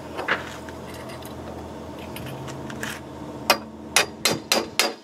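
Sharp metal-on-metal knocks, about four a second, starting about three and a half seconds in: a clevis pin being tapped home to secure a lower spreader to a sailboat mast. A couple of faint clicks come first, over a steady low hum.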